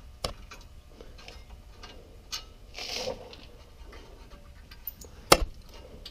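A hand ratchet clicking as the front brake caliper bolts are backed out, with a few scattered sharp metallic clicks, the loudest one about five seconds in, and a brief rustle near the middle.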